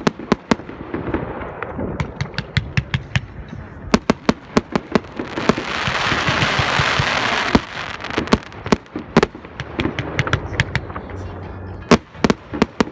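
Fireworks going off, with many sharp bangs in irregular succession. A dense crackling hiss fills the middle, from about five to seven and a half seconds in.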